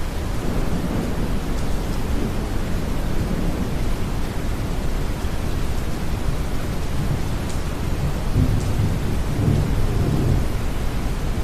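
Deep brown noise layered with steady rain and the low rumble of distant thunder. One rumble comes early, and a longer, stronger one swells about seven to ten seconds in.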